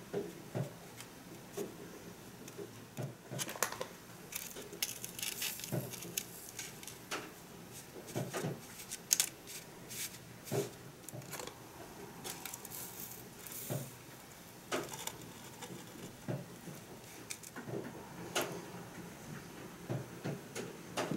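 Light plastic clicks, taps and scraping as a small plastic spoon scoops and spreads candy powder in the moulds of a plastic candy-kit tray. The clicks come irregularly, with a few longer stretches of scraping.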